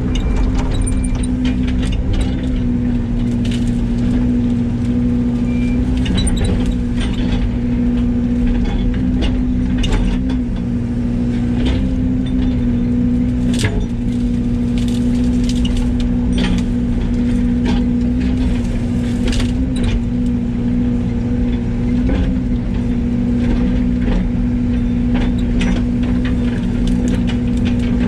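Yanmar ViO80 mini excavator's diesel engine running steadily at an even pitch, with scattered sharp clacks and knocks from the machine working.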